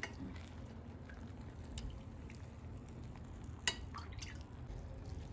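Faint drips and small clicks over a low hum, as syrup is ladled onto semolina cake in a foil tray; one sharper click about two-thirds of the way through.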